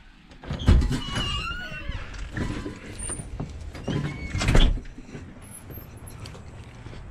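A house's front door being unlatched and opened: several handling knocks, the loudest about a second in and again past four seconds, with a few short squeaks between them.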